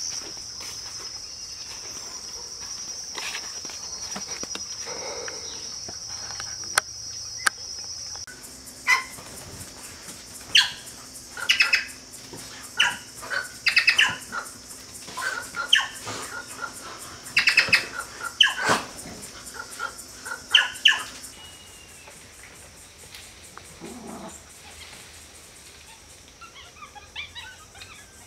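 A steady high-pitched insect chorus, which stops abruptly about eight seconds in. Then comes a run of loud, harsh calls from plush-crested jays, about a dozen over the next twelve seconds, before it settles into quieter background.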